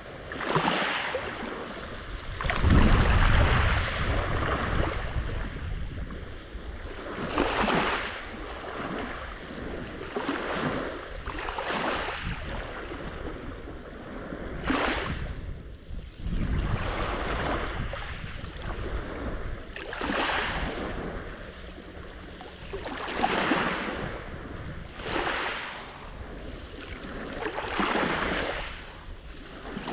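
Black Sea waves breaking on the shore and washing back, one after another every two to three seconds, the loudest and deepest about three seconds in.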